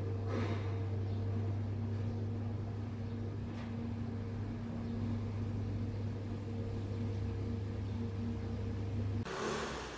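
Electric stand fans running with a steady low hum and whir, and a faint click about three and a half seconds in. The hum cuts off suddenly near the end.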